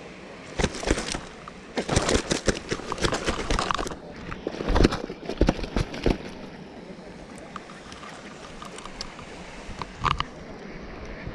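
A carp being handled in a landing net on a wet unhooking mat: irregular wet slaps and knocks in bursts for about the first six seconds. It then goes quieter, with one short knock about ten seconds in as the net is lifted.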